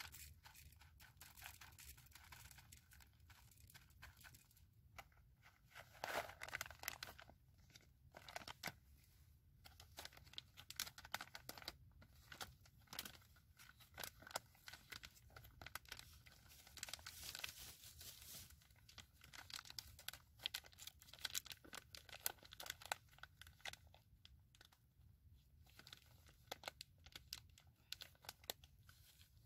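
Faint crinkling and rustling of a foil coffee bag being handled, with irregular crackles throughout and the busiest stretches about six seconds in and again just past the middle.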